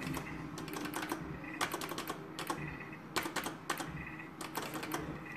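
Irregular sharp clicks of a slot machine's buttons being pressed, with short faint electronic beeps from the machine as the reels spin.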